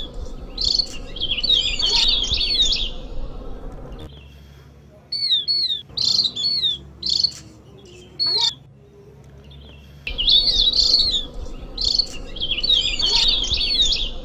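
Javan grey-throated white-eye (opior jawa) calls played as a lure. Dense, high, fast chattering twitter comes in the first three seconds, then a run of short separate phrases from about five to eight and a half seconds, then the chattering again from about ten seconds. The same passage repeats, as in a looped recording.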